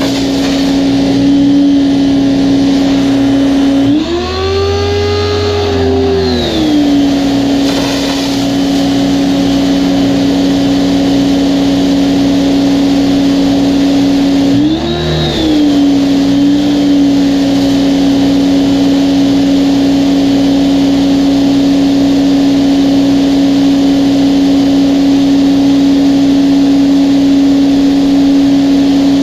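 Ivation 2200 PSI electric pressure washer's motor and pump running with a steady hum. About four seconds in, its pitch rises for about two seconds and falls back, and it does so again briefly near the middle. This surging is the hiccuping and loss of pressure the owner noticed after a couple of minutes of use, as if the pump can't keep up.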